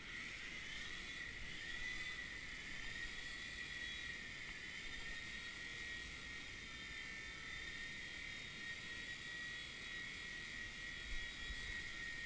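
WLtoys V911 micro RC helicopter's small electric motors and rotor whining in flight. The steady high whine comes in suddenly at the start as the rotor spins up, then wavers slightly in pitch as the helicopter climbs and drops.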